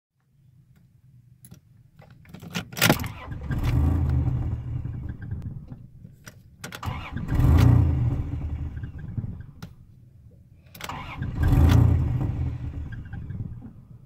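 1996 Dodge Dakota's 3.9 V6 starting up about three seconds in, then revved up three times with the throttle and sagging back each time to a low, uneven idle. It is the hard start and rough idle that need gas to keep the engine running, still there after the idle air control valve and MAP sensor were cleaned.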